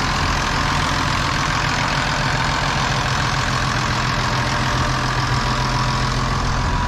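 Massey Ferguson 5465 Dyna-4 tractor's diesel engine idling steadily.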